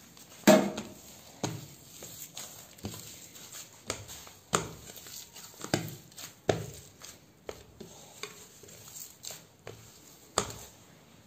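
Hands kneading soft gulab jamun dough on a ceramic plate, with irregular knocks and clatters of the plate as the dough is pressed and pushed. The loudest knock comes about half a second in.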